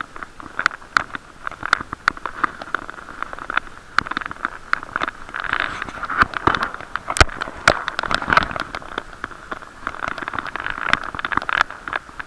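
Bicycle riding heard through an action camera's waterproof housing: a steady muffled rushing noise with many irregular knocks and rattles from bumps in the road, one sharper knock about seven seconds in.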